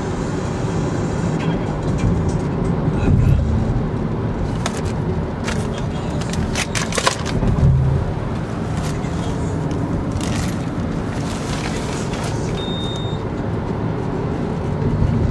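Steady road and engine noise inside the cabin of a moving car, with a few clicks about five to seven seconds in and a short high beep near the end.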